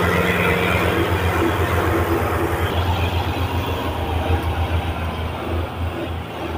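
Farm tractor's diesel engine labouring steadily under a heavy pulling load, with a dense low pulsing beat.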